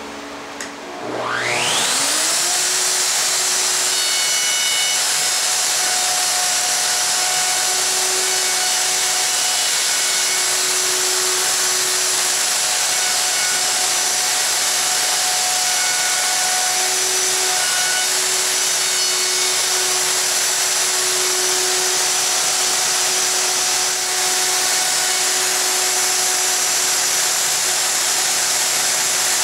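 Festool OF2200 router switched on with a click and winding up to full speed in about a second, then running steadily as it cuts the miter track slot through the laminate-covered table top. A dust extractor hums underneath.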